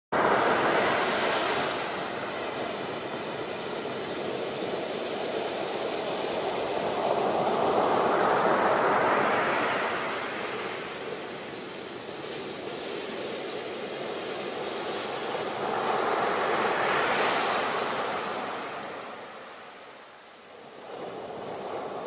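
Ocean surf: waves breaking and washing up the shore. The rush of water swells and eases in long surges about eight seconds apart, dipping low a couple of seconds before the end.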